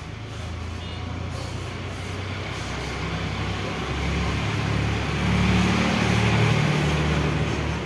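Hot air rework station blowing, a steady rushing hiss over a humming fan motor, as it heats a small surface-mount resistor to desolder it. It grows louder about four to five seconds in.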